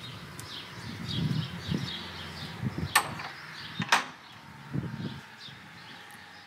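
Footsteps on a paved path, then a heavy wooden church door being opened, with two sharp clicks of its latch about three and four seconds in. Birds chirp in the background.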